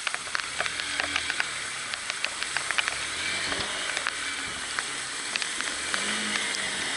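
Steady hiss of rain and water spray with many sharp ticks of drops striking, over the faint, wavering low note of a Honda Bros 150 single-cylinder motorcycle engine wading through floodwater.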